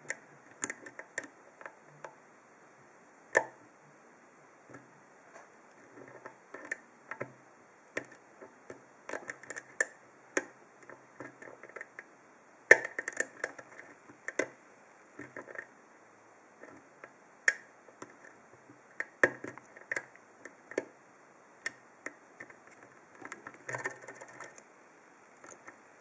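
Lock-picking sounds: a thin Sparrows deep hook probing and lifting the pins of a Ruko five-pin oval pin-tumbler cylinder under a wire tension wrench, giving irregular small metallic clicks and scrapes. A few sharper clicks stand out, about three, thirteen and seventeen seconds in.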